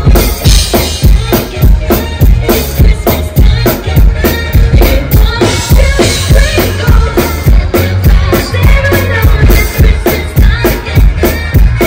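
Live pop band playing loudly through a PA: a steady, heavy drum-kit beat with bass and electric guitar, and a singer's voice over it.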